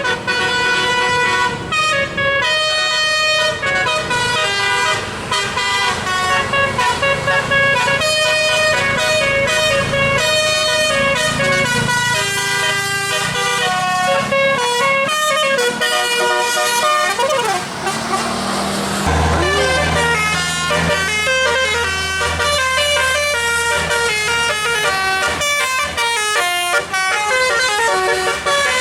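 Bus telolet horn playing a fast tune of stepped notes. About 17 seconds in there is a falling pitch sweep with a hiss, and from about 19 seconds a low, steady engine drone runs under the horn.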